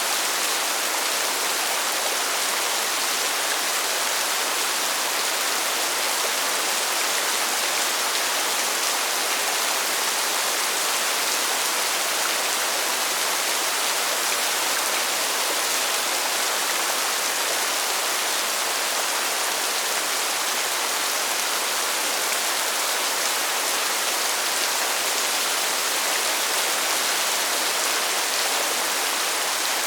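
Steady rainfall: an even, high hiss that does not change, with no thunder and no single drops standing out.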